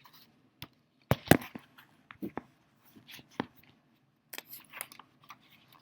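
Paper rustling and tapping as a picture book is handled and a page is turned, with a sharp knock just over a second in.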